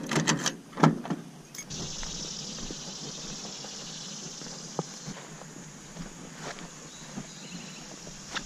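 A car door being handled and shut, a few knocks with the loudest about a second in. From about two seconds in, a steady high chirring of insects with a few light footsteps on grass.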